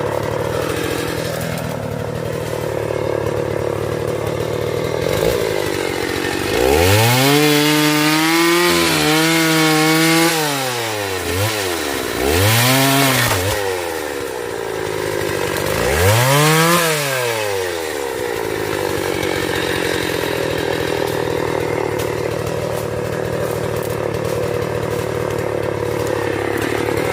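Two-stroke chainsaw idling, revved up three times with its pitch climbing and dropping back each time; the first rev is the longest, about four seconds.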